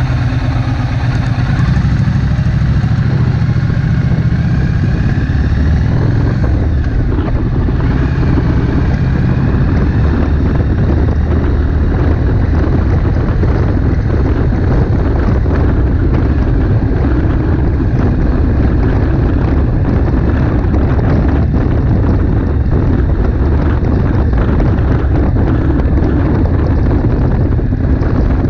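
Triumph Street Twin's 900 cc parallel-twin engine idling, then rising in revs as the bike pulls away about six seconds in. It then runs at low road speed, with wind buffeting the microphone.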